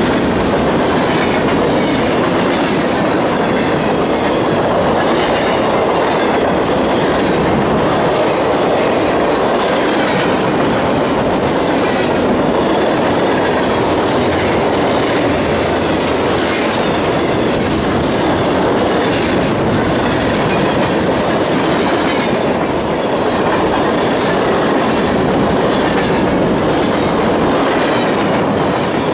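Freight cars of a long mixed freight train (tank cars and covered hoppers) rolling past close by. Their steel wheels clack over the rail joints in a steady, loud rush.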